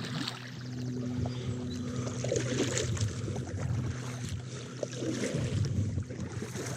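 Water splashing and sloshing around a kayak as it is paddled, with louder splashes about two and a half and five seconds in, over a steady low hum.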